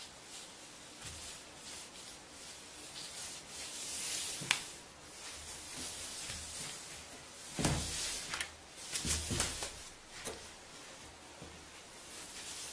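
A cat's paws swiping under a door, rubbing and scraping against the carpet and a sheet of paper, with a few sharper scrapes and knocks about a third of the way in and again in the second half.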